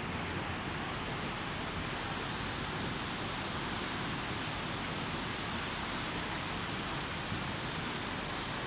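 Swollen Swat River in flood, its water rushing steadily as an unbroken noise.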